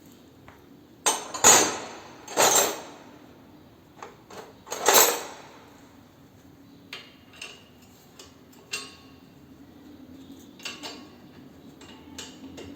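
Metal hand tools clanking and knocking against metal parts of the motorcycle: three loud ringing clanks in the first five seconds, then a few lighter clicks and taps.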